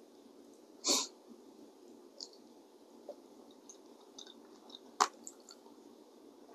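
Quiet sounds of a person eating a seafood boil: faint chewing and small mouth clicks, with one short breathy burst about a second in and a sharp click about five seconds in.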